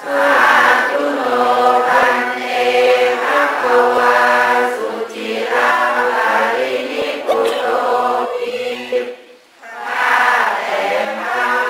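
A group of voices chanting together in long, sustained phrases, with a short pause about nine seconds in.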